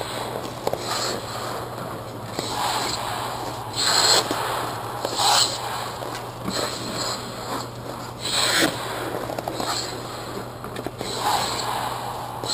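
Hockey goalie's skate blades scraping and carving the ice as he pushes and shuffles across the crease, with several sharper scrapes a few seconds apart, over a steady low hum.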